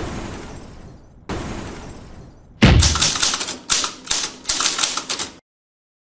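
Logo-animation sound effects. The fading tail of a hit, then a second hit about a second in that dies away. From about two and a half seconds there is a quick, uneven run of about eight typewriter-style key clacks as text types onto the screen, ending suddenly near the end.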